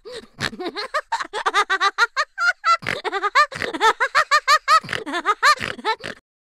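High-pitched giggling laughter, a rapid run of short ha-like bursts, about five or six a second, that breaks off about six seconds in.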